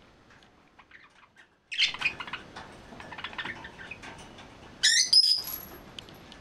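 Yellow budgerigar warbling: a rapid, chattering song of varied chirps begins about two seconds in, and two loud, sharp calls come near the end.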